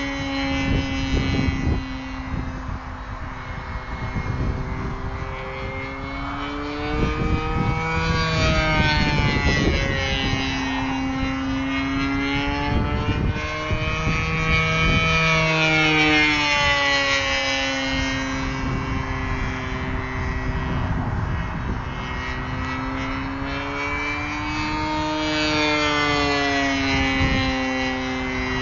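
MVVS 26cc single-cylinder two-stroke petrol engine of a radio-control P-47D Thunderbolt model plane running in flight. Its pitch rises and falls several times as the plane flies around.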